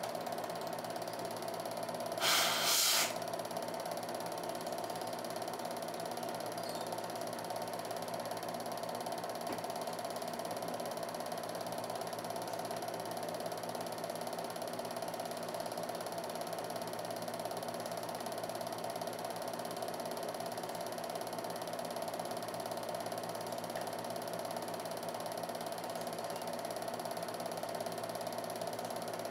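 Film projector running with a steady whir and clatter, with a short burst of hiss about two seconds in.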